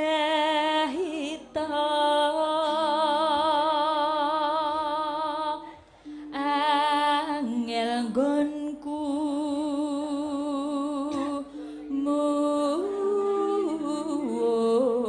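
A sinden, a Javanese female gamelan singer, singing a Javanese song into a microphone: long held notes with wide vibrato, with a short break for breath about six seconds in.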